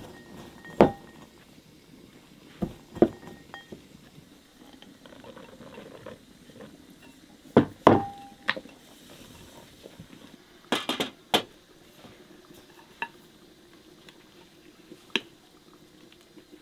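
Metal utensil clinking against a glass mixing bowl and ceramic bowls during batter mixing: a handful of sharp clinks, some with a short ring, and a quick run of clinks about eleven seconds in.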